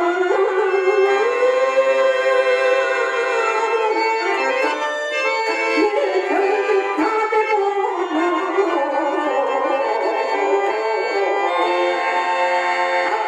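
A man singing a Telugu padyam in long, bending held notes over the steady sustained chords of a harmonium.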